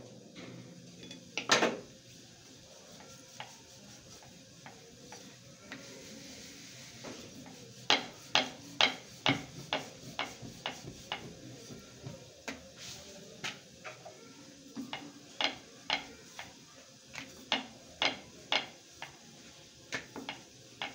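Wooden rolling pin rolling out roti dough on a round wooden board, with a single sharp knock about a second and a half in, then a run of sharp wooden clacks, about two a second, from about eight seconds in as the board knocks on the counter under the pin.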